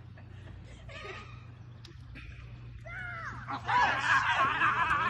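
A group of people laughing and shouting, starting faintly about three seconds in and swelling into loud overlapping laughter near the end.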